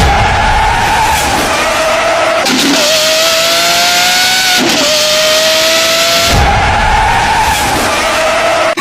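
High-revving performance car engine under hard acceleration. Its pitch climbs in each gear and drops suddenly at the gear changes, twice in the middle.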